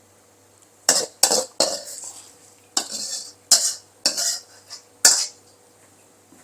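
A metal utensil scraping and knocking against a wok, about eight sharp clanks with scrapes between them, starting about a second in, as the finished stir-fry is scooped out.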